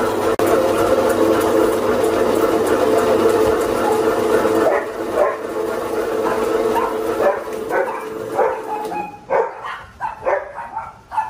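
Electric meat slicers running with a steady motor hum while food is fed through their blades. Near the end the hum fades and a dog barks several times in short, sharp yips.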